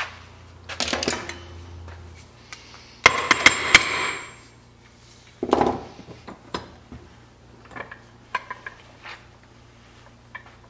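Hand hammer striking the metal end fittings of a wooden wagon neck yoke held in a bench vise: a quick run of about four blows with a metallic ring about three seconds in, and a single knock shortly after. Light clicks and rattles of metal parts being handled follow.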